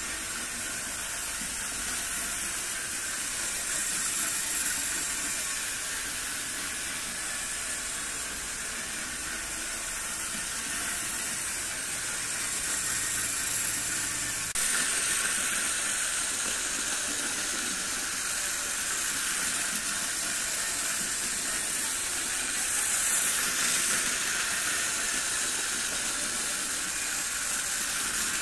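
Two Märklin model trains, one of them a 3078 DHG 500 diesel shunter, running on Trix three-rail metal track: a steady whirring hiss of small electric motors and metal wheels rolling over the rails. It steps up in loudness about halfway through.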